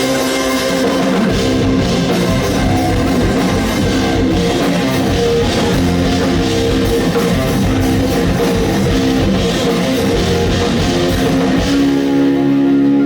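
Rock band playing live, with electric guitar and drum kit in an instrumental passage and no singing. Near the end the drums drop away, leaving a held guitar chord.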